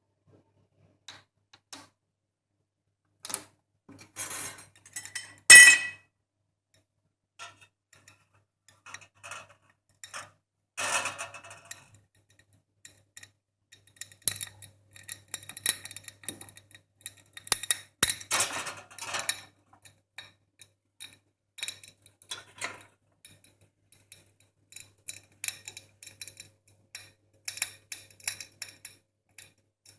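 Kitchen clatter of dishes, pans and cutlery being handled: scattered knocks and clinks, one loud ringing clink about five seconds in, then a run of quick light clicks through the second half.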